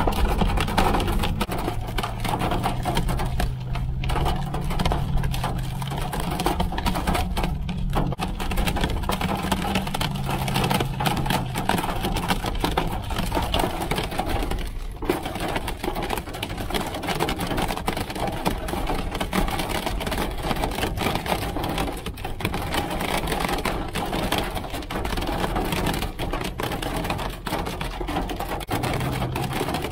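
Hail hitting the roof and sides of a Jeep, heard from inside the cab as a dense, rapid, continuous rattle of small impacts over a low steady hum.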